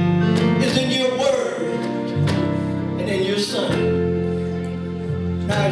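Music: a singing voice over instrumental accompaniment, with long held notes.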